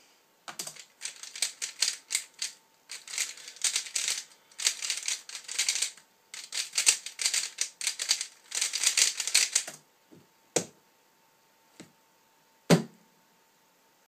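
A 3x3 Rubik's cube being turned fast in a speedsolve: rapid clicking and clacking of the plastic layers in quick bursts for nearly ten seconds, then stopping. A few sharp knocks follow, the loudest near the end.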